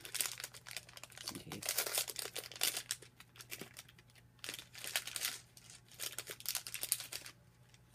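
Plastic wrapper of a small packet of Chili Nut M&M's crinkling in the hands and being torn open, in several bursts of rustling.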